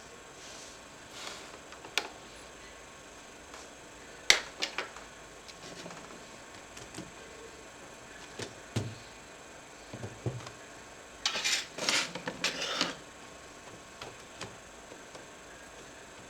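Hands and tools working on an HP ProBook 4520s laptop being taken apart: scattered small clicks and taps of plastic and metal parts, the loudest a sharp click about four seconds in, and a short stretch of scraping and rattling around eleven to thirteen seconds in.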